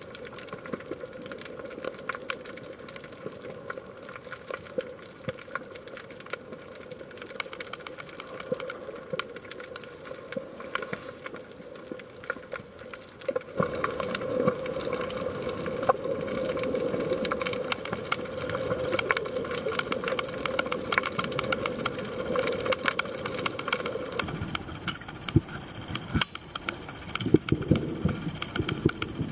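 Underwater ambience picked up by a submerged camera: a steady hiss with constant faint crackling clicks. Its tone shifts abruptly about halfway through and again near the end.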